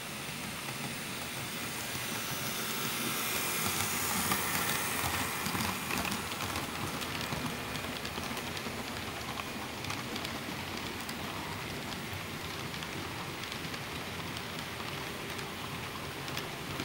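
HO-scale model freight train rolling past close by: a steady rattling hiss of metal wheels on the track with many small clicks, loudest a few seconds in as the locomotives and the first piggyback flatcars go by.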